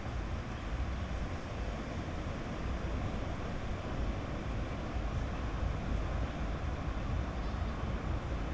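Sea waves washing steadily on a beach, with wind rumbling on the microphone.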